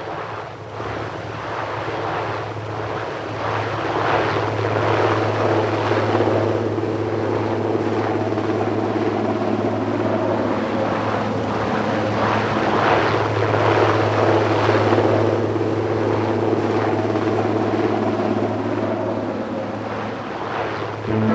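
Helicopter engine and rotors running in a steady drone, growing louder over the first few seconds, then holding.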